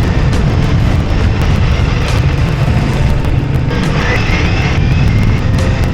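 Ducati Multistrada V4S motorcycle running at speed: steady loud engine rumble mixed with wind and road noise, with a faint whine rising in about two-thirds of the way through.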